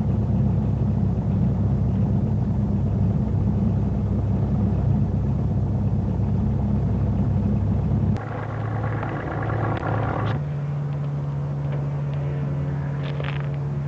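Light aircraft's piston engine and propeller heard from inside the cabin while taxiing, a loud steady low rumble. About eight seconds in it cuts off suddenly to a quieter, steady pitched hum.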